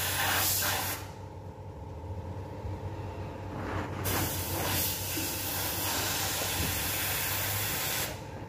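A steady rushing hiss over a low hum. The hiss cuts out about a second in, comes back about four seconds in, and drops again near the end.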